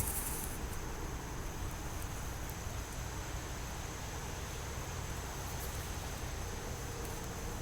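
Faint, steady background hiss with no distinct event.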